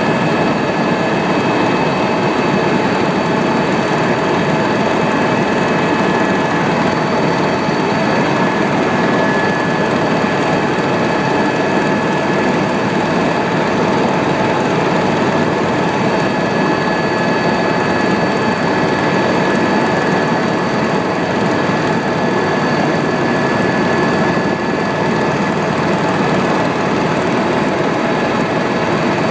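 Helicopter turbine engine and rotor running steadily, a dense rumble with a thin high-pitched whine held throughout.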